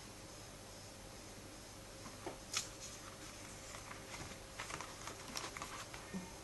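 A comic book being handled: light rustling and soft taps begin about two seconds in, the sharpest tap about half a second later, over a faint steady hum.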